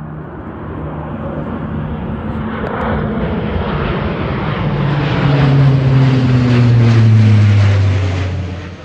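Low-flying propeller aircraft passing over, its engine growing steadily louder as it approaches. The engine note drops slightly as it goes by in the second half, and the sound cuts off suddenly near the end.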